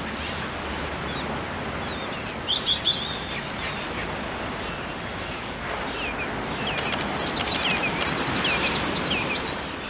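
Surf washing steadily under high, short calls from a resting flock of terns and gulls: a brief cluster of calls about two and a half seconds in, then a rapid, louder run of chirping calls from about seven seconds until near the end.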